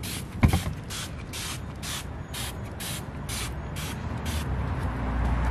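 Hand spray bottle squirting bug-preventative insecticide in quick repeated hissing squirts, about two a second, with a single thump about half a second in.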